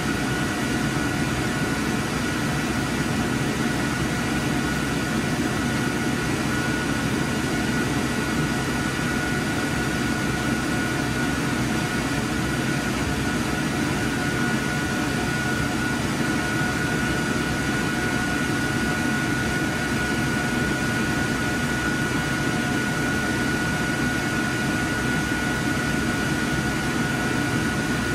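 Steady drone of projection-booth cooling fans and ventilation, with a thin high whine holding one pitch throughout.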